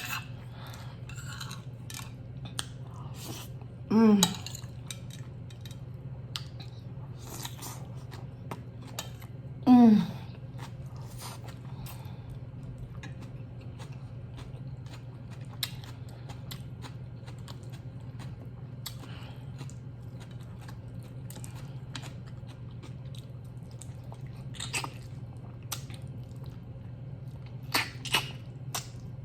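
Close-up chewing and mouth sounds of a person eating slow-cooked oxtail off the bone, with many small clicks and a steady low hum underneath. Twice, about four and ten seconds in, there is a short hummed voice sound that falls in pitch.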